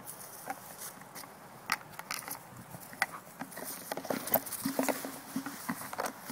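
An iPhone on a small tripod being grabbed and jostled by a basset hound: irregular knocks, scrapes and rustling, with her fur and ears brushing the microphone. The knocks start about two seconds in and are thickest around four to five seconds.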